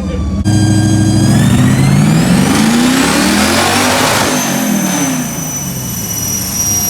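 Mustang V8 making a pull on a chassis dyno. The engine revs up steadily for about three seconds, then lets off and winds down. A high steady whine carries on after the let-off.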